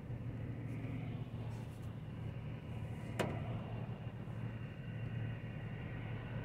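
Steady low rumble of a car heard from inside its cabin, with one sharp click about three seconds in.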